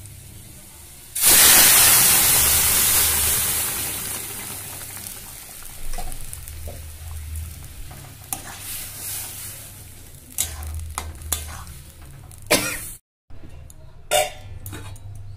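Boiled masoor dal with spinach hitting a hot oil tempering of fried aromatics and whole spices in a kadai: a sudden loud sizzle about a second in that slowly dies away. After it, a metal spatula stirs and scrapes the wok, with a few sharp knocks near the end.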